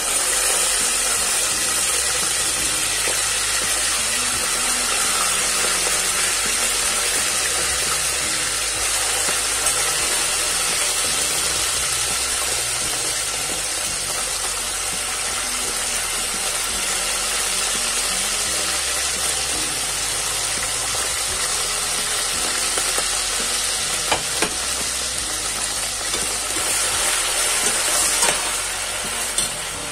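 Boiled beef pieces frying in hot oil in a stainless steel pot: a loud, steady sizzle as the wet meat hits the oil, with a slotted spoon stirring and knocking sharply against the pot a couple of times near the end.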